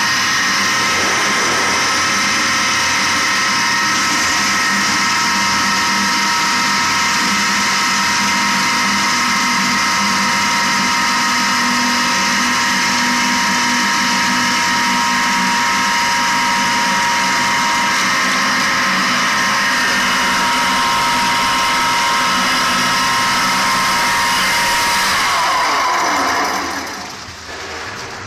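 An 18.5 kW disc (Tesla-type) sand pump running steadily under load with a whine of several fixed tones as it pumps sand-and-water slurry. Near the end its pitch slides down and it gets quieter.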